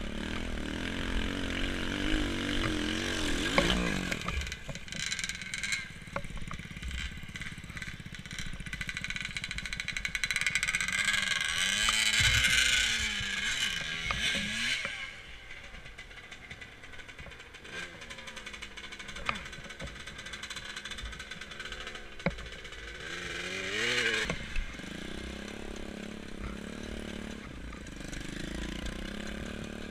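Small off-road dirt bike engine revving, its pitch rising and falling again and again, loudest about twelve seconds in and again briefly near twenty-four seconds.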